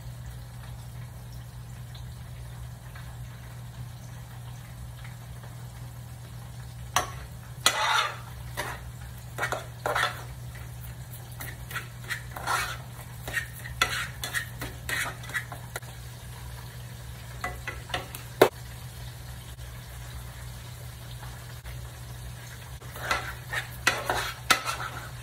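Metal fork scraping and clinking against a saucepan as boiled potatoes are mashed and stirred by hand, in bursts about seven seconds in and again near the end, with one sharp click midway. Underneath, pork chops frying in oil and a steady low hum.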